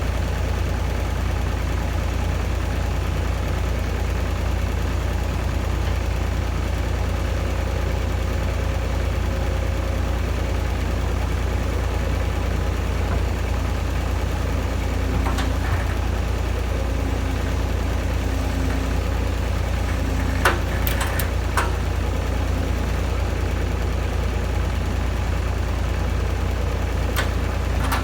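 Diesel excavator engine running steadily with a deep low rumble. A few short sharp clicks or knocks come through, the loudest about 20 seconds in.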